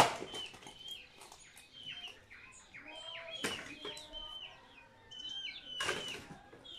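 Wood being chopped with an axe: three dull strikes a few seconds apart, the first the loudest. Small birds chirp over it with short, repeated calls.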